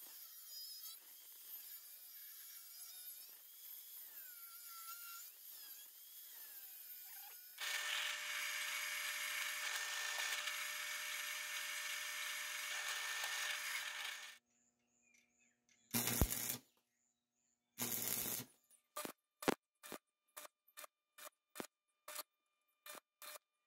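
Metalworking power tools one after another: an angle grinder cutting steel flat bar, then a drill press boring steel plate with a louder steady motor tone for about seven seconds. After a short gap, a stick welder strikes two longer arcs and then a quick run of short bursts, tack-welding steel tube.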